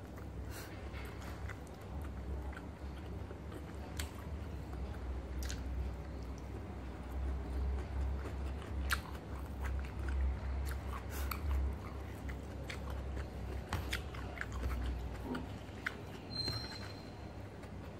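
Close-up sounds of a person eating by hand: chewing and biting with many small mouth clicks, and fingers picking rice off a plate. A steady high tone sounds briefly near the end.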